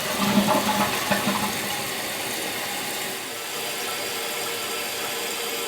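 Toilet test flush: water gurgling down for the first second or so, then a steady hiss as the tank refills through a newly installed Fluidmaster 400A fill valve.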